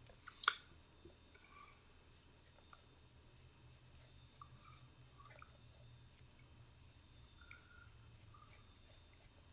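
Quick, light scratching strokes of a drawing tool on sketchbook paper, about three a second, as a portrait is sketched.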